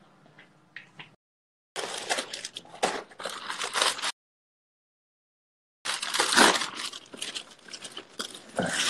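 Crackling, rustling handling noise on a phone microphone, in two bursts of a few seconds each, with the sound cutting out completely in between.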